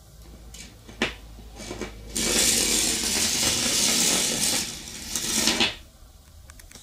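Battery-and-magnet electric train in a bare copper wire coil: a click about a second in as the battery goes into the coil, then a loud steady rasping as it rushes through the copper turns, which cuts off suddenly near the end as it leaves the coil.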